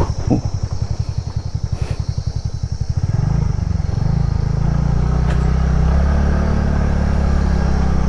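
TVS NTORQ scooter's single-cylinder engine pulsing at low revs, then opened up about three seconds in and running steadily under throttle.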